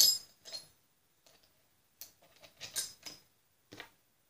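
Small steel washers clicking and clinking as they are handled and set onto a mower spindle's shaft and pulley: one sharp click at the start, then several fainter, irregular ticks.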